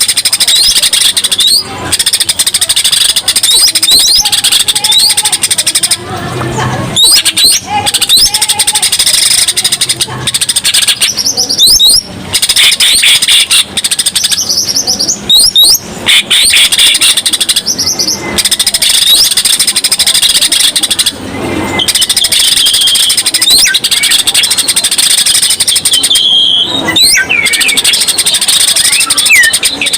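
A cucak ijo (green leafbird) singing loud and almost without pause, a fast, varied stream of chirps, whistles and quick up-and-down glides. It breaks off briefly several times. This is the non-stop 'gacor' song full of fill-in phrases ('isian') that keepers play to set other birds singing.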